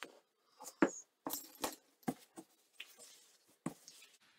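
Painted river rocks being picked up and set down on a wooden tabletop: a string of hard clacks and knocks as stone meets stone and table.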